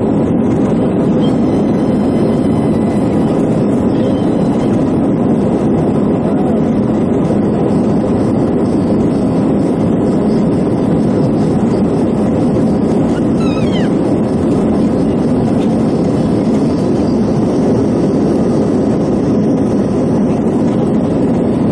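Steady cabin noise of an Airbus A320-214 in its climb after takeoff: the hum of its CFM56 jet engines and the rush of air, heard from inside the passenger cabin at an even, loud level.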